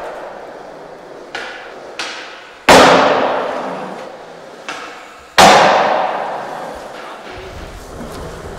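Skateboard cracks and slams echoing in a concrete stairwell: several sharp smacks of the board, with two loud slams about two and a half and five and a half seconds in that ring on for a long time. Near the end, hard urethane wheels rumble steadily across a smooth hallway floor.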